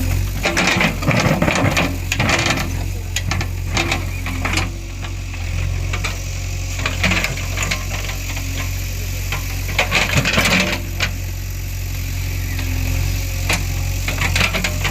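JCB 3DX backhoe loader's diesel engine running steadily, with rattling and clanking from the machine working a few times, loudest about a second in and again around ten seconds in.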